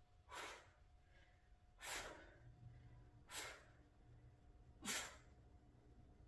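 A woman's faint, sharp exhalations, four of them about one and a half seconds apart, one with each rep of kettlebell zombie crunches.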